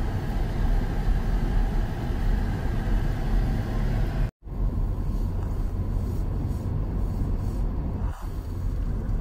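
Steady low road and engine rumble heard inside a car driving on icy roads, cut off by a brief total dropout a little over four seconds in.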